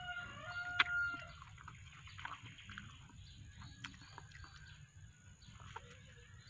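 A rooster crows, its long held last note ending about a second in, with one sharp click near its end. After that, faint bird chirps and scattered small clicks.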